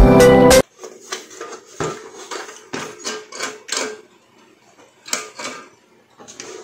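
Music that cuts off about half a second in, then a string of light, irregular knocks and clatters from the rice cooker's body and parts being handled and set in place.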